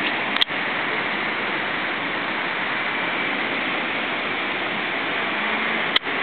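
Steady hiss of street noise with no distinct engine or voice, broken by two brief clicks, about half a second in and near the end.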